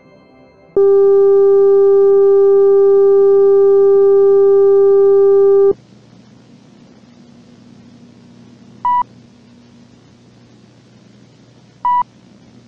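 A loud, steady electronic tone cuts in sharply about a second in, holds for about five seconds and stops abruptly. Afterwards faint VHS tape hiss with a low hum runs under two short, higher-pitched beeps about three seconds apart.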